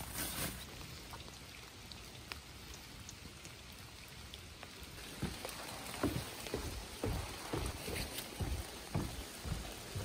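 Rain falling in a steady patter. From about five seconds in, footsteps thud on a wet wooden boardwalk, about two steps a second.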